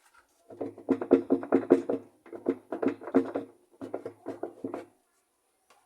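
Washing-machine agitator being worked off its stuck shaft, giving a stuttering, pulsing creak in three stretches, about a second or so each.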